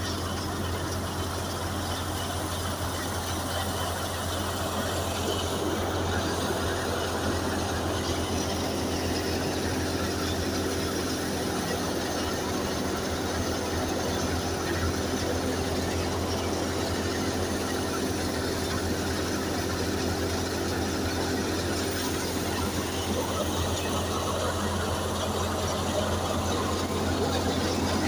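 Wheat thresher running steadily: a constant low hum under an even rushing noise, with no change in speed.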